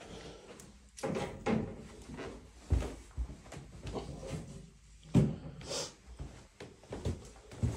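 Footsteps going down carpeted stairs: a string of dull, irregular thuds, about one or two a second.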